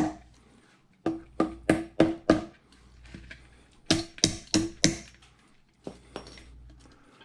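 Rubber mallet knocking on a whole-house water filter housing to free a cartridge stuck inside, packed in with fine black sediment. Two quick runs of blows, five and then four, about three a second, each with a short hollow ring, and one light tap after them.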